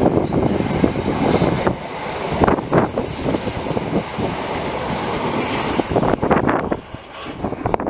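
Train running past on the tracks: steady rolling noise of wheels on rail, with a series of irregular knocks as the wheels pass over the track.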